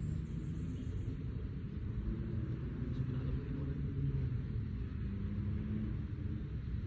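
Steady low outdoor rumble with a faint, slightly wavering hum; no club strike.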